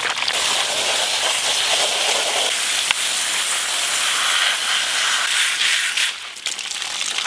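Garden hose spraying water hard onto a colander of freshly husked black walnuts, a steady hiss, as the nuts are rinsed clean of husk residue. The spray eases off about six seconds in.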